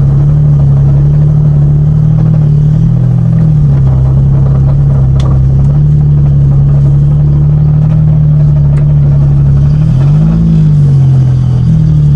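A Suzuki Cultus's small three-cylinder petrol engine running at low revs as the car moves off slowly, heard from inside the cabin. The engine note shifts slightly about three seconds in and rises and falls once in a brief rev near the end.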